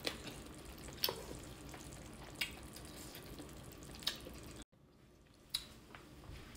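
Faint scattered pops and clicks, roughly one every second or so, over a low steady hiss: hot pot broth simmering, with a head-on shrimp being peeled by hand. The sound cuts out briefly a little past the middle.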